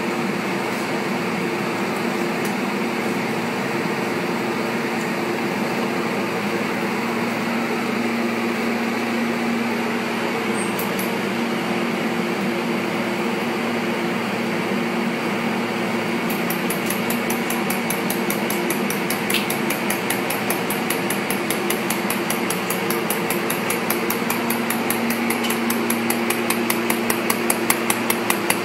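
Mould laser welding machine humming steadily, then, from a little past halfway, firing its laser in rapid, regular ticks that grow louder toward the end as the weld on the mould proceeds.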